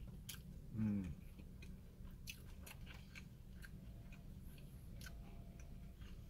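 A person chewing breaded chicken katsu, with faint crunches and mouth clicks scattered through, over a steady low hum. About a second in there is one short falling 'mm' hum from the eater.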